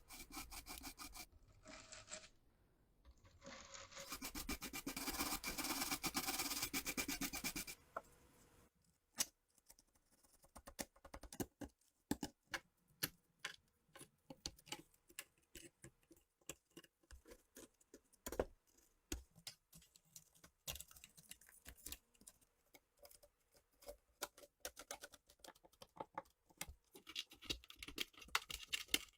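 Rough scraping or scrubbing against a rusty metal part for about four seconds, then a long run of small, irregular clicks and taps as metal parts are handled.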